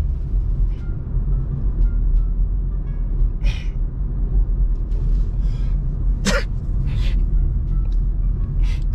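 Steady low rumble of a moving car heard inside the cabin, with a few short, sharp breathy noises.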